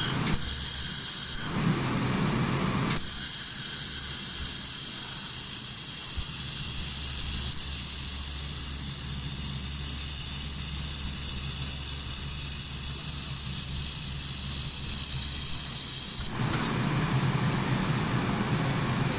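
Handheld laser welder firing on thin galvanized steel, a steady high hiss of gas flow at the nozzle switching on and off with the trigger: a short burst of about a second near the start, then one long pass of about thirteen seconds that cuts off sharply. A lower steady hum of the welding machine runs underneath.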